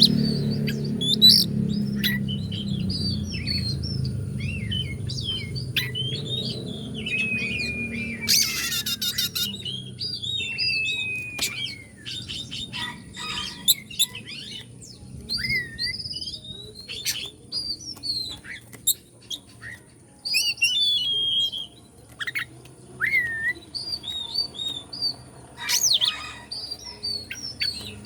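Oriental magpie-robin (kacer) singing a varied song of whistled notes, quick chirps and long downward-sliding notes, broken by short pauses.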